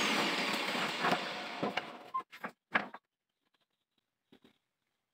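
Electric angle grinder with a sanding disc spinning down after being switched off, its running noise fading away over about two seconds. A few knocks of the wooden board being handled follow.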